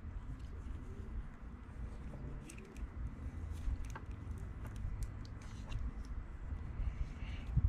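Vinyl electrical tape being wrapped around a bundle of power cables: scattered small crackles and clicks of tape and cable handling over a low rumble.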